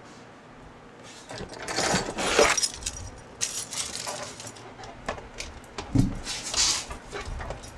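Car keys jangling and clinking as they are handled, with rustling and a dull thump about six seconds in.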